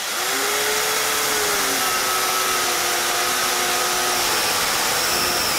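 Westfalia 500 W mini plunge-cut circular saw running at full speed and cutting into a piece of timber, a loud steady whine over cutting noise that sags slightly in pitch about a second and a half in.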